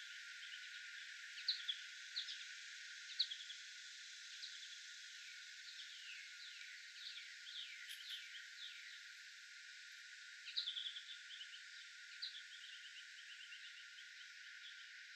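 Outdoor birdsong: several small songbirds giving short high chirps, the sharpest about a second and a half and three seconds in. A run of downward-slurred notes follows in the middle, then trills of quick repeated notes about ten seconds in and again about twelve seconds in, over a steady background hiss.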